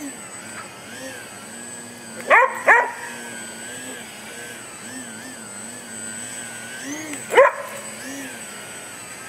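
Electric RC plane's Axi 2208/26 brushless motor and 9x5 propeller whining as the plane hovers, its pitch wavering up and down over and over. A dog barks twice in quick succession about two seconds in, then once more about seven seconds in.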